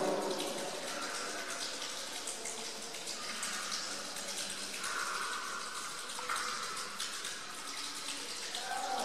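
Tiger calling in the background: one long pitched call tails off at the start and another begins just before the end, with a steady hiss and a few faint tones in between.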